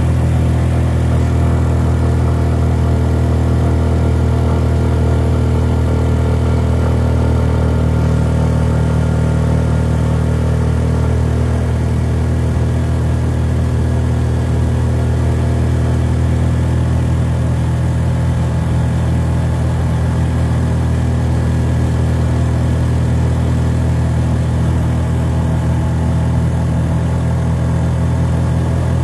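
Car engine and road noise heard from inside the vehicle while cruising: a steady low drone that holds an even pitch throughout.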